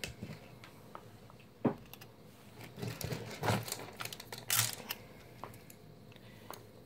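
A length of bronze craft wire being handled and drawn through the fingers: scattered light clicks and short rasping swishes of wire sliding and tapping, with one sharper click about two seconds in.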